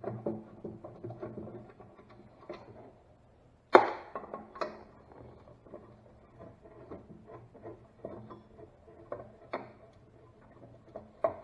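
Hand tools working on a car dash assembly as the screws of a hinge are taken out: scattered clicks, scrapes and light knocks, with a sharp knock about four seconds in and a second one just after.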